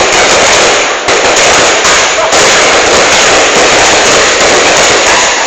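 Fireworks display: a dense, unbroken barrage of bursts, loud enough to near-overload the recording, easing briefly about one and two seconds in.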